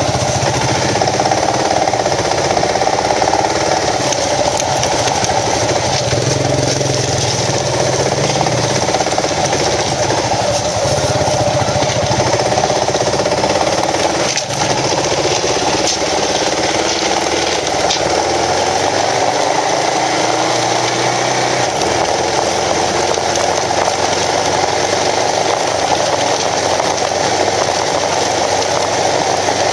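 Kawasaki KLR650's single-cylinder engine running while being ridden, its revs rising and falling, over a steady rush of noise. The deepest part of the engine note drops away a little over halfway through.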